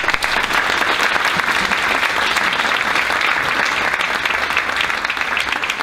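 Audience applauding steadily: a dense, even clapping that begins just as the talk ends.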